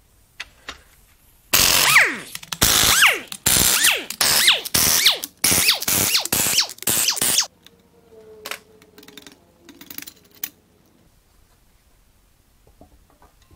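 Pneumatic impact wrench running the main bearing cap bolts out of a Mazda 2.3 L MZR engine block: about ten short hammering bursts, each with a whine that drops in pitch as the bolt spins free. A few lighter metal clinks and knocks follow after the wrench stops.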